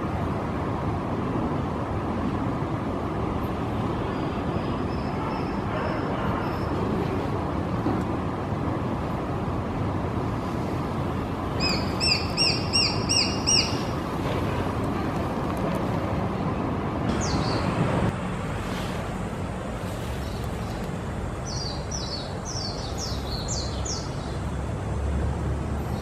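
Juvenile Japanese sparrowhawk calling in runs of high, rapidly repeated notes: a faint series early, a loud run of about seven notes in under two seconds around the middle, and further short runs of falling notes later on.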